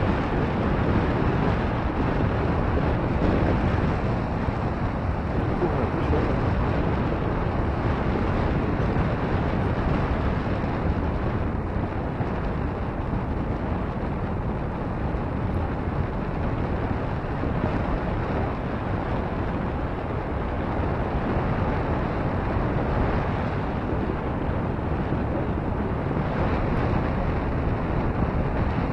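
Steady rush of wind buffeting the microphone on the open upper deck of the CabriO cable car as it travels down, an even noise without let-up.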